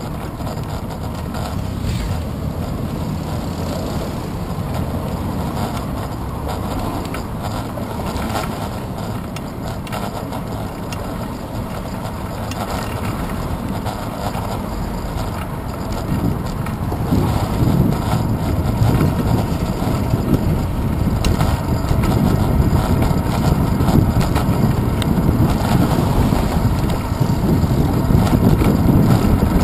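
Wind rushing over a handlebar-mounted GoPro Hero 2 on a moving bicycle, with a steady low rumble from the tyres and road. The rumble grows louder a little past halfway.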